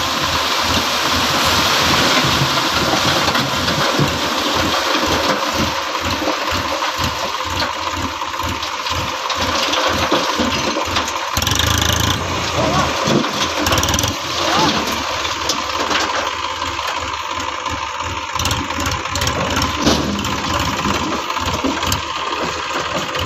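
Massey Ferguson tractor's diesel engine running with an even pulsing beat while its hydraulic tipping trailer is held raised to dump soil. The engine grows louder for a couple of seconds about halfway through.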